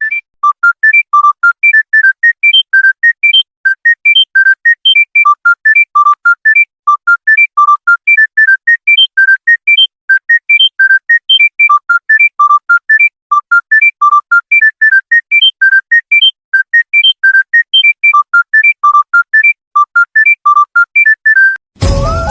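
Electronic smartphone ringtone: a melody of short, clean synthesized notes, about four a second, in a repeating phrase. Near the end it cuts to a different, fuller piece of music.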